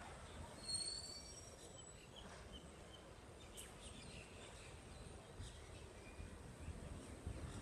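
Faint outdoor ambience with birds chirping: a few short, high calls about a second in and scattered ones after, over a low steady background rumble.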